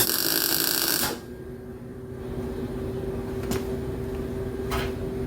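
An arc welder's transformer humming steadily, with about a second of loud crackling arc at the start, a short tack weld on the truck bed's sheet metal. A few light clicks of metal follow.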